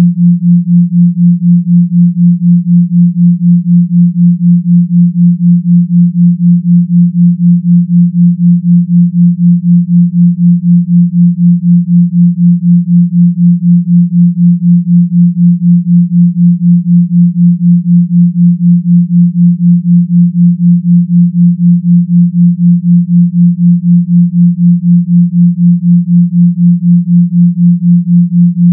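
174 Hz binaural beat: a pair of pure sine tones, 172 Hz on the left and 176 Hz on the right, making a steady low hum that pulses about four times a second.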